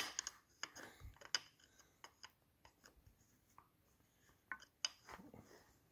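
Faint scattered clicks and light scraping of a screwdriver against the metal of a motorcycle carburetor, with a sharper click at the start.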